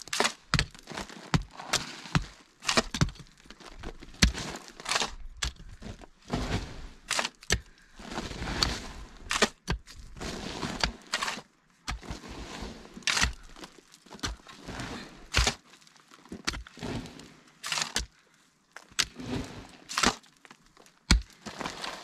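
Short-handled hoe chopping into a heap of earth on a plastic sheet, breaking up clods: irregular sharp knocks and scrapes, about one or two a second.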